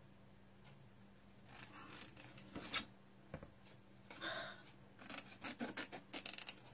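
Brown cardstock being handled and cut with scissors: a few faint rustles, then a quick run of small snips in the second half.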